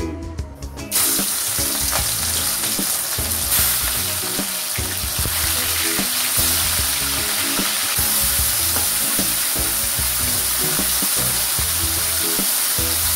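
Crab pieces and spices sizzling in hot oil in a wok as a steady frying hiss that starts about a second in, with a spatula stirring through it. Background music plays underneath.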